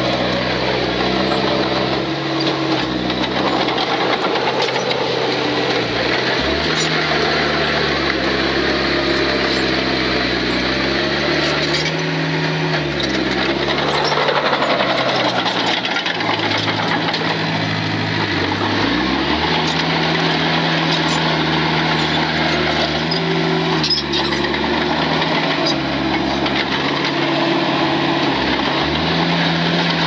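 Diesel engine of a Komatsu D20P crawler bulldozer working under load. Its pitch rises and falls as the throttle and load change, dipping about halfway through and again a few seconds later before picking back up.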